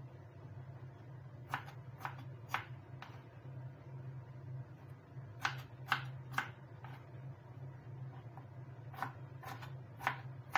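Kitchen knife slicing on a plastic cutting board: three runs of about four sharp taps each, roughly two a second, over a steady low hum.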